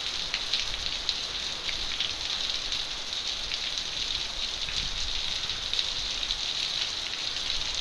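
Heavy rain falling on a brick-paved courtyard: a steady hiss of rain with many small drop ticks through it.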